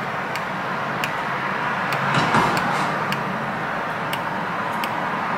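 Steady rushing background noise with a faint low hum, swelling slightly about two seconds in, and faint high clicks now and then.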